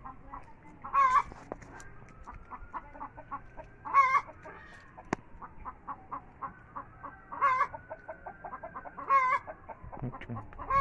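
Chickens clucking steadily, with a short, loud wavering call every two to three seconds.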